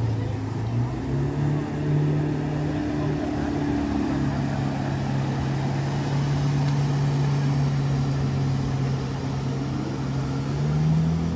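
Jet ski engine running at speed, with water hiss underneath; the engine pitch steps up about a second in, eases down a little around four seconds, and rises again near the end.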